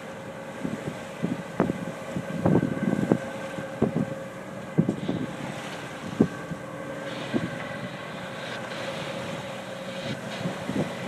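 Wind buffeting the microphone in gusts over the steady rush of water past a sailboat's hull under sail, with a brief splash of bow spray near the end.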